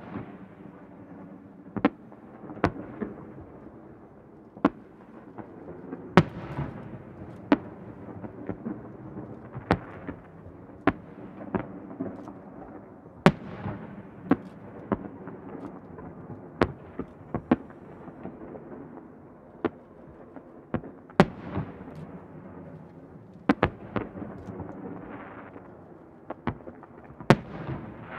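Aerial firework shells bursting in a continuous display: sharp bangs at irregular intervals, about one a second, each trailing off in a rolling echo.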